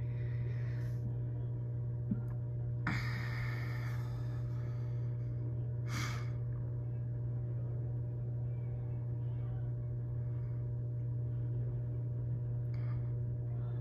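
Steady low electric hum of an aquarium's submersible water pump and filters running, with a few short hissing bursts, about three seconds, six seconds and near the end.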